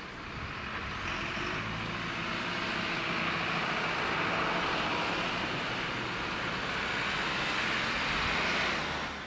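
A flatbed truck with a loading crane drives past, its engine and tyre noise building about a second in and then holding steady. A car follows near the end.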